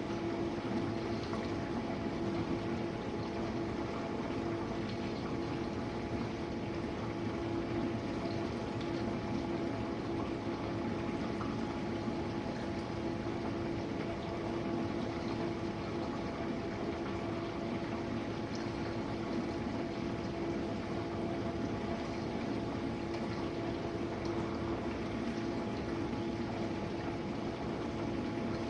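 Jenn-Air dishwasher running its final rinse: a steady pump hum under the even hiss and swish of water spraying inside the tub.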